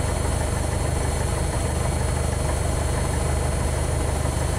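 Piper Archer's single piston engine and propeller idling steadily, heard from inside the cockpit.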